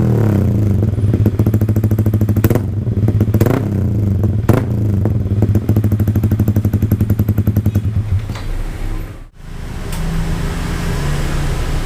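Yamaha R15 V3's 155 cc single-cylinder engine running through an aftermarket exhaust, a steady low note with a pulsing loudness and a few short sharp spikes in the first half. The sound cuts out briefly about nine seconds in and then runs on steadily.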